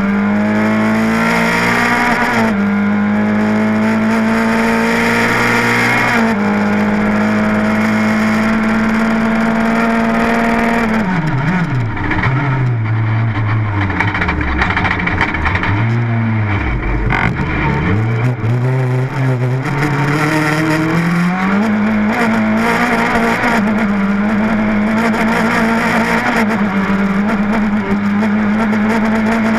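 Rally car engine heard from inside the cockpit, running hard with its revs held steady and dipping briefly twice early on at gear changes. About eleven seconds in the revs drop and rise and fall unevenly for some ten seconds as the car slows and picks up again, then climb back and hold steady.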